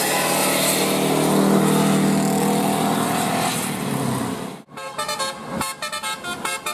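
Bus telolet horn sounding over vehicle noise. About two-thirds of the way through it breaks off abruptly, and a rapid string of short multi-tone horn notes follows, toot after toot at changing pitches like a little tune.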